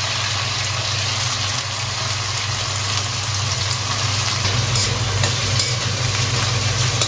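Potato wedges frying in mustard oil in a steel kadai, a steady sizzle, over a steady low mechanical hum. A couple of light clicks near the end as a slotted steel spoon goes into the pan.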